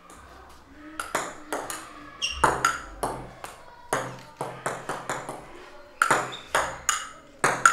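A run of sharp, ringing pings, about three a second in an uneven pattern, each struck and fading quickly; they begin about a second in.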